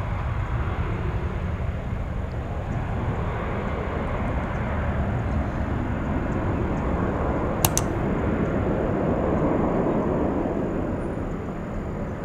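Jet airliner engine noise: a steady rumble that swells for a few seconds past the middle and eases near the end, with one sharp click about eight seconds in.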